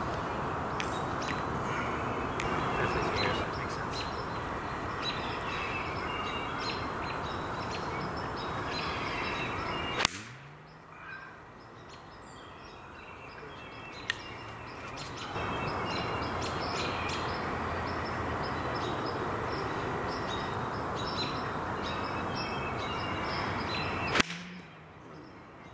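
Two sharp strikes of a Wilson game-improvement 7 iron hitting golf balls off grass, about ten seconds in and again near the end, over a steady background hiss and birds chirping.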